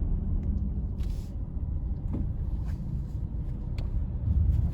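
Car driving along a road: a steady low rumble of engine and tyres, with a few faint clicks.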